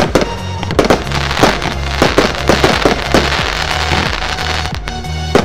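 Evolution Fireworks '3 Times Heaven' compound cake firing: a rapid run of sharp bursts, with a dense spell of crackling in the middle, over background music with a steady bass.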